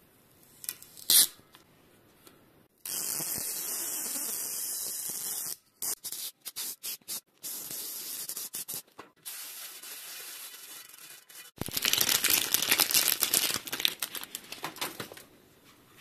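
Adhesive rim tape being peeled off a bicycle rim. A couple of sharp clicks, then long hissing tearing pulls that stop and start, ending in a louder crackling rip.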